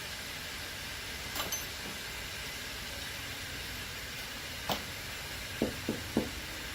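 Steady hiss with a few short knocks: one about a second and a half in, another past the middle, and three in quick succession near the end.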